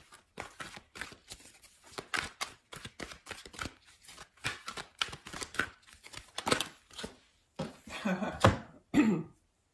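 Tarot cards being shuffled and handled: a quick, irregular run of papery snaps and rustles.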